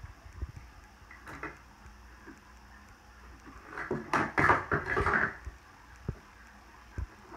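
Small pets tussling with a pink toy on carpeted stairs: a burst of scuffling and rustling about four seconds in, with a few faint knocks around it.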